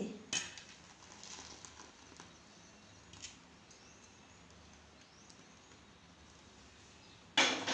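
Faint clinks and scrapes of a ladle against the pot as cooked milk kheer is poured out into a serving dish, with a short loud noise near the end.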